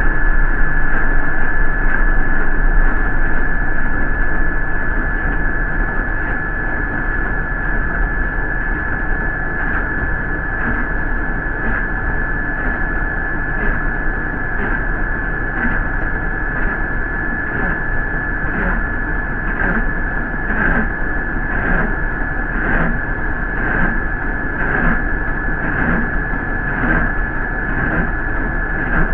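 Ride noise inside a New York City MTA bus: a steady drone with a thin, constant high whine. About a third of the way in, a regular stroke begins, repeating about once a second.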